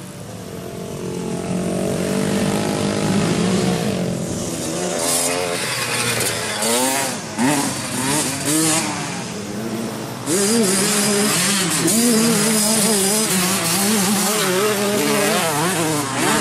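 Several dirt bike engines revving up and down on a dirt track, their pitch rising and falling over and over. One gets louder about ten seconds in.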